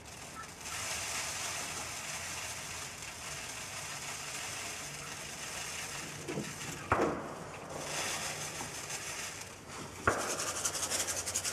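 Steady scratchy rustling, with two sharp clicks about seven and ten seconds in, then a fast patter of ticks near the end.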